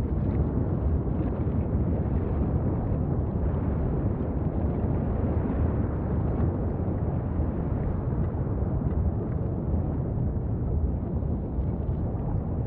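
Steady low rumbling roar of an erupting lava vent, a dense rumble with no breaks or distinct blasts.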